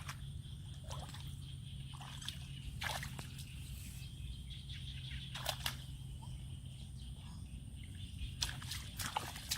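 Shallow water sloshing and splashing now and then, strongest around three and five and a half seconds in and again near the end, as hands work through it to catch fish. Under it runs a steady low hum.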